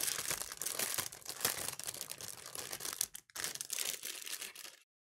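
Plastic packaging crinkling and tearing as diorama kit parts are unwrapped by hand, with a brief pause about three seconds in before it stops near the end.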